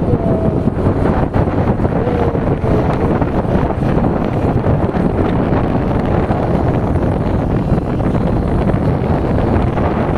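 Steady wind rushing over the microphone of a camera on a motorcycle moving at road speed, a dense low rumble of wind and road noise.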